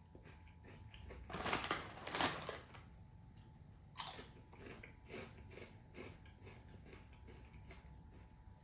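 Potato chips (Lay's Magic Masala) bitten and chewed close to the microphone: two loud crunches about a second and a half in, a sharp snap at about four seconds, then a run of fainter chewing crunches.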